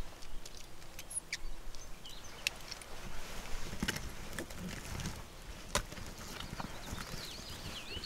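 Hunting gear being handled and packed into a canvas bag: scattered clicks and knocks of hard items, with rustling and a few low thuds. Birds chirp faintly in the background.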